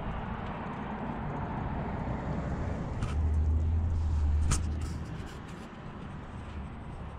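Harley-Davidson V-twin motorcycle engine rumbling under steady wind noise on the camera microphone. The rumble grows louder for about a second and a half in the middle, with a couple of light knocks.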